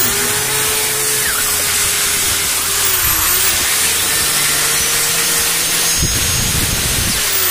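Bosch GSB 501 corded drill running at speed off the mains after a new needle bearing and change-over switch have been fitted: a steady motor whine with a brief dip in speed about three seconds in. Near the end it is switched off and the whine falls as it winds down.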